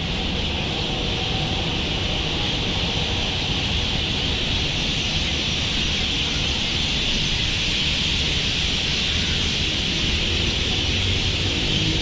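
Steady outdoor background noise: a constant high-pitched hiss with a low rumble underneath, unchanging throughout.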